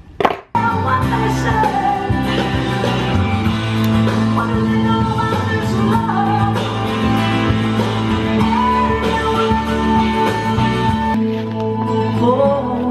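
Background rock song with guitar and a sung vocal, coming in loudly just after a short sharp click.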